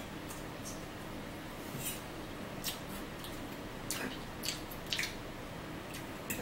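Close-up chewing of a cucumber slice: wet mouth sounds with about ten short crunches and clicks scattered irregularly through the seconds.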